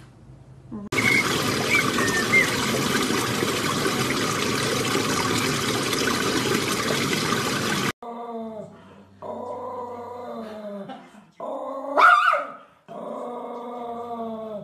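A loud, steady rushing noise for most of the first eight seconds, which stops abruptly. Then a golden retriever puppy makes drawn-out whining, growly vocalizations, with one sharp rising yelp shortly before the end.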